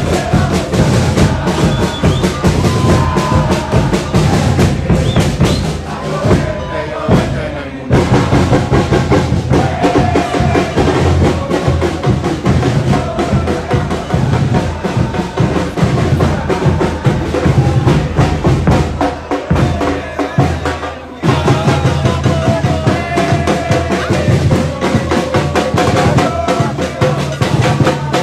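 Background music with a steady drum beat and a melody, breaking off briefly twice.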